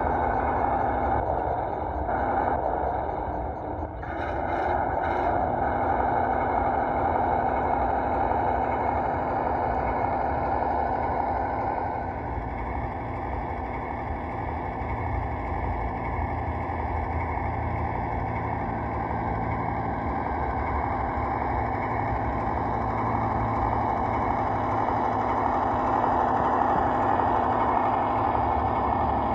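Simulated V8 truck engine sound from the sound module of a 1:12 RC ZIL-131, running steadily while the model drives, with a few brief clicks about four to five seconds in and a change in the engine note about twelve seconds in.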